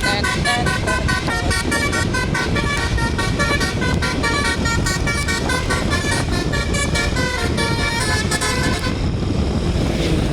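Telolet basuri tour-bus horn playing a quick tune of short, clear notes over a low rumble; the tune stops about nine seconds in.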